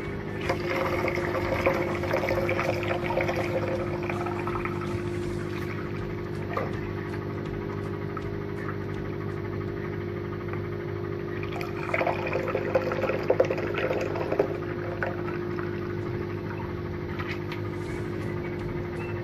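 Liquid being poured in two spells, from about half a second to five seconds in and again from about twelve to fifteen seconds in, over a steady low hum.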